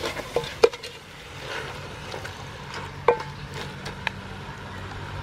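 Wooden spoon stirring and mixing chicken pieces in a thick curry paste in a large aluminium pot, with a few sharp knocks of the wood against the metal pot wall, the loudest about half a second and three seconds in.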